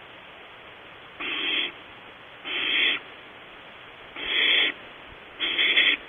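Barn owl nestling giving harsh, hissing begging calls: four calls, each about half a second long, a little over a second apart.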